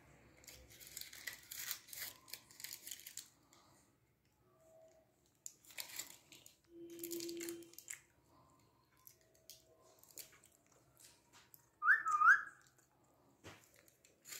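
Two rose-ringed (Indian ringneck) parakeets nibbling and beaking at each other, making scratchy clicks and rustles in short clusters, with a brief soft tone now and then. Near the end one gives a short, sharp, sliding whistle-like chirp, the loudest sound.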